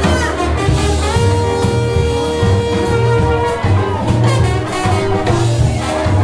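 Live brass band playing jazz: horns over a pulsing bass and drum beat, with one long held horn note in the first half.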